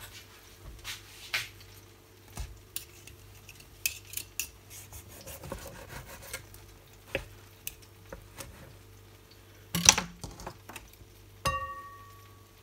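Knife and fork cutting through a grilled bratwurst on a plastic cutting board: scattered scrapes and taps of cutlery, with a louder clatter about ten seconds in and a short ringing clink near the end.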